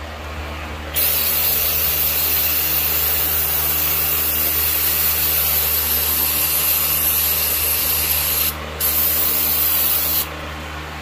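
Aerosol spray can hissing in a long burst of about seven seconds, a short break, then a shorter burst of about a second and a half, aimed at a truck's front brake caliper.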